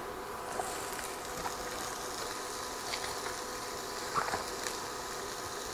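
Red bell pepper strips sizzling steadily in hot oil in a pan, with a few light knife taps on a plastic cutting board.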